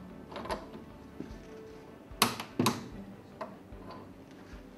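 Torque wrench tightening a fitting on a submersible pump motor held in a steel vise to 70 Nm: a few light clicks, then two sharp metallic clicks about half a second apart, about two seconds in, as the wrench signals the set torque.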